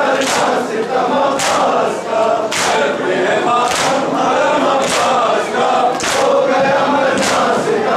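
Crowd of male mourners chanting a noha together, with loud unison chest-beating (matam): open hands striking chests in time, roughly once a second, seven strikes over the stretch.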